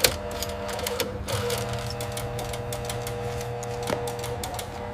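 Steady drone of several held tones with quick, irregular mechanical clicking over it.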